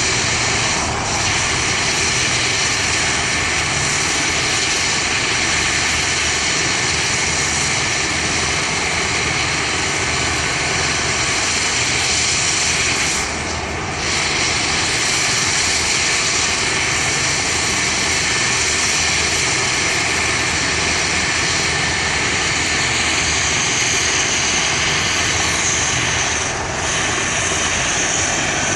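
Air ambulance helicopter's turbine engine and rotor running steadily, with a high turbine whine that grows stronger near the end.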